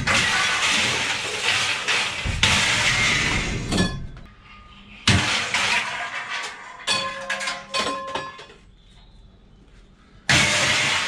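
Scrap metal being thrown and dumped onto a scrapyard pile: a run of clattering crashes, then separate sharp metal impacts, some with a brief metallic ring. After a lull, another loud crash comes near the end.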